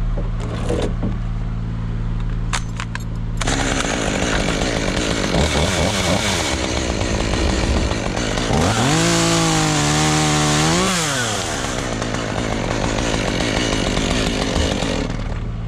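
Chainsaw starting to run about three seconds in, revving up near the middle and holding for a couple of seconds before dropping back, over a steady low engine hum.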